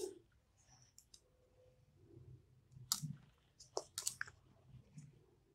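Faint handling sounds of embroidery on casement cloth: a few short sharp clicks and soft rustles as the fabric is turned and the needle and thread are worked, with clicks scattered from about one second in to near the end.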